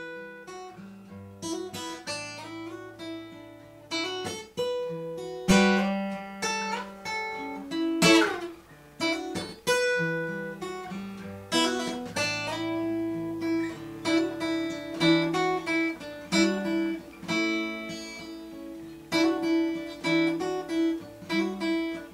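Solo acoustic guitar instrumental break: fingerpicked notes and chords ringing out one after another, with a few sharper strummed chords.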